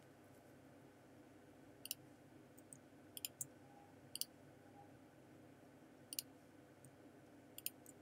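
Computer mouse clicks, about seven sharp ones spread irregularly, some single and some in quick pairs, over faint steady room hum.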